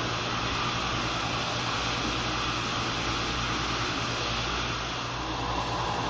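Steady background drone with a low, constant hum underneath, like building ventilation or air-handling equipment running; it holds unchanged throughout.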